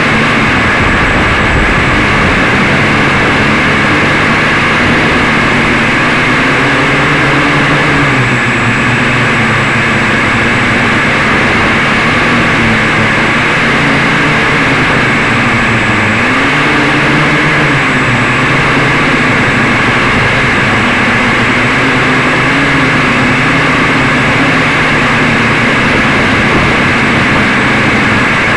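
Quadcopter's electric motors and propellers whirring, picked up by the camera on board the craft. The pitch rises and falls with the throttle.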